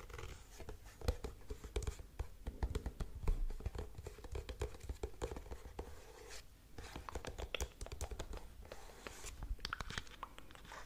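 Fingernails tapping and scratching on items held close to the microphone: a quick, irregular run of clicks and scrapes, with a brief pause about six and a half seconds in.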